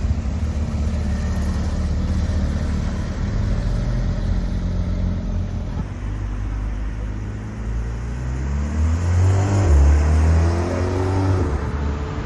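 Porsche engine running steadily, then accelerating hard with its pitch rising, loudest about nine to eleven seconds in.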